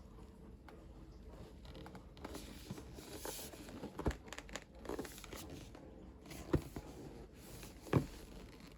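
Packaging being handled and opened: rustling, crinkling and tearing, with three sharp knocks about four, six and a half and eight seconds in, the last the loudest.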